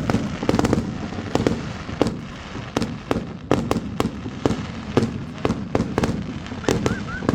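Fireworks and firecrackers going off, near and far: an irregular string of sharp bangs, several a second, over a continuous rumble of more distant bangs.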